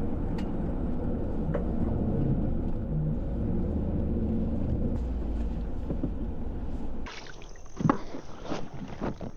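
A plastic fishing kayak being launched, its hull dragged across the ground: a steady low rumble for about seven seconds, then several knocks and clunks.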